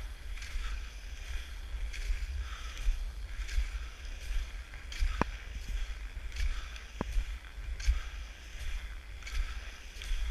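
Cross-country skis swishing over groomed snow in a steady stroke rhythm, about one stroke every three-quarters of a second, over a constant wind rumble on the camera's microphone. Two sharp clicks come about five and seven seconds in.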